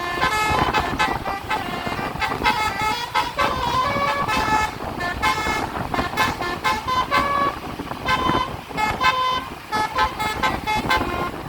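Tour bus's basuri telolet horn playing a quick melody: a string of short, high horn notes changing pitch a few times a second, over a low rumble of road noise.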